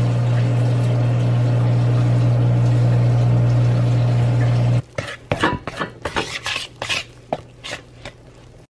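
A steady low electric hum from a kitchen appliance, loud and unchanging, cuts off suddenly about five seconds in. Then come scattered clinks and scrapes of a spoon against a pot and dishes as food is stirred.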